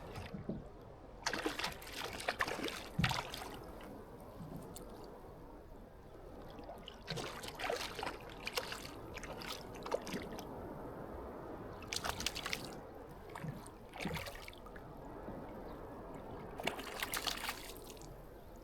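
Water splashing and trickling close by in irregular bursts, with a steady lapping in between.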